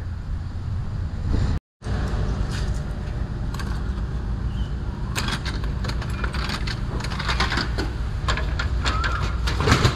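Wind buffeting the microphone with a steady low rumble, cut by a brief dropout near two seconds in; from about halfway on, a run of short clicks and rustles of things being handled.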